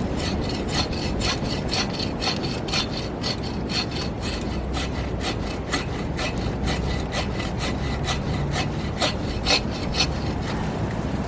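Hand saw cutting through a tree top or branch in quick, steady back-and-forth strokes, about three a second, stopping about ten seconds in. Wind rumbles underneath.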